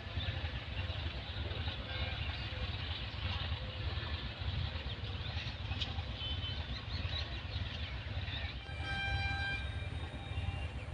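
A passenger express train rolls away along the track with a steady rumble. Near the end a train horn sounds once, a steady tone for about two seconds.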